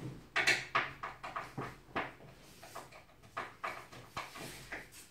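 Dark laminated-board bed-frame panels being handled by hand during assembly: an irregular run of short knocks and scrapes, the loudest about half a second in.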